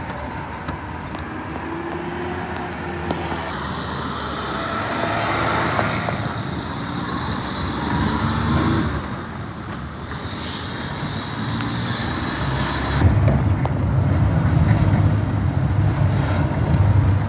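Engine and road noise of a vehicle driving through town traffic. A low engine rumble grows louder about thirteen seconds in.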